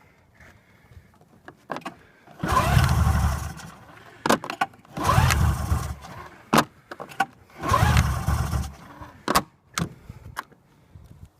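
An engine cranked over three times, about a second each, without catching: it won't start. Sharp clicks come between the attempts.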